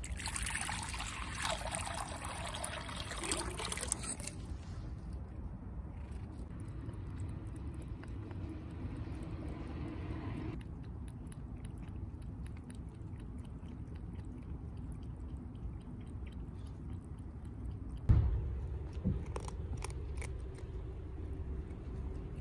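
Water poured from a bottle into a plastic bowl, a loud splashing rush for about four seconds that then eases to a quieter trickle. After that, faint small clicks as a cat drinks and eats at the bowls, with one sharp thump about 18 seconds in.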